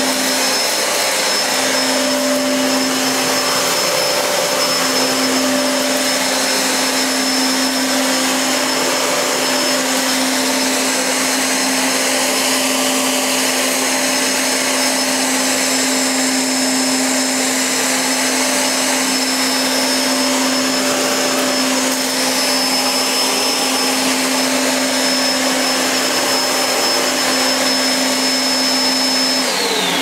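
Hoover Smart Pets SM1901 bagless upright vacuum cleaner running steadily on a hard floor: a steady whine over rushing air, with its brush roll spinning against the floor and flicking loose debris back behind it. Right at the end the whine falls in pitch as the motor winds down.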